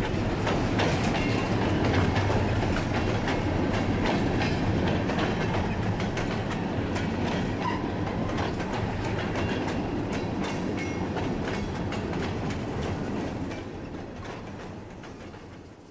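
VIA Rail passenger train of stainless-steel cars rolling past on the rails, with a steady rumble and a rapid run of wheel clicks over the rail joints. The sound dies away over the last few seconds.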